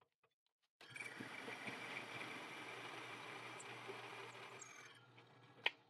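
Drill press driving a 2½-inch hole saw into a wooden block: a steady whir of the machine with the rasp of the saw cutting, starting about a second in and stopping about a second before the end. A single sharp click follows near the end.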